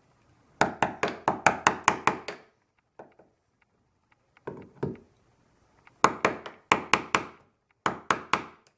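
Hammer tapping a wood chisel along a pencil line, scoring the outline of a hinge recess in wood. The taps are sharp and come in quick runs of about five a second, with short pauses between runs.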